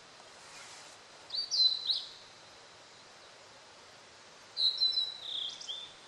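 Male blue-and-white flycatcher singing: two short phrases of clear, sliding whistled notes, one about a second in and the second near the end.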